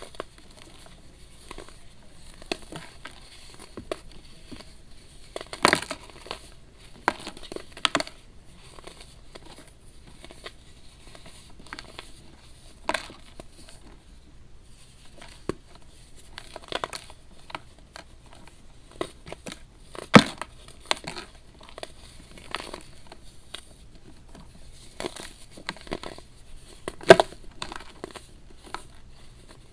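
Pressed baking soda being crushed by hand: irregular dry crunches and crumbles, a few sharper loud cracks among softer crumbling.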